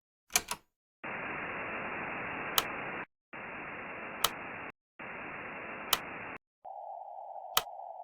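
Static hiss like a radio receiver's band noise, in three bursts of about one and a half to two seconds with short gaps between them. It opens with a double click, and a sharp click comes about every 1.7 seconds. Near the end the hiss narrows to a thinner, lower band, as when a narrow CW filter is switched in.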